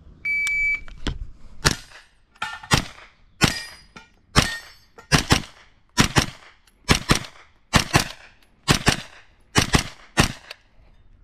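A shot timer's start beep, one steady high tone lasting about half a second, then a JP Enterprises GMR-15 pistol-calibre carbine firing a stage string of about sixteen shots, mostly fired in quick pairs, that runs on for about nine seconds.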